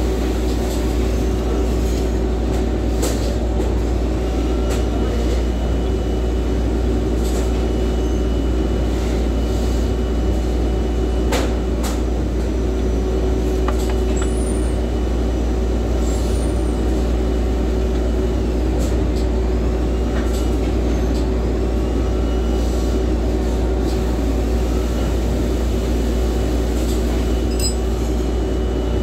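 Steady machinery drone with a deep hum and a constant tone, and scattered light metallic clicks and taps from hand work on the electric motor's mounting.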